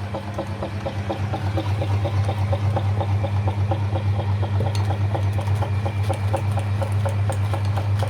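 Electric meat grinder running: a steady motor hum with a fast, even ticking from the turning mechanism, and a few sharp clicks in the second half.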